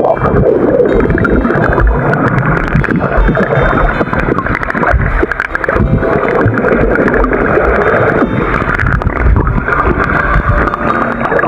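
Loud rushing, gurgling running water at a dam, a continuous churning noise with an uneven low rumble underneath.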